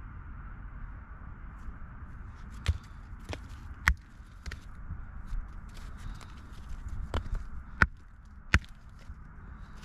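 Hand hammer striking blocks of limestone, a few sharp cracks in two bursts, about a second or less apart, as the rock is split open.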